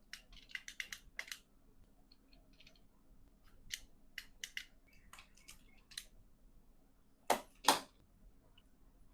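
Faint scattered small clicks and taps, a handful in the first second and a few more midway, with two louder ones near the end, over a faint steady low hum.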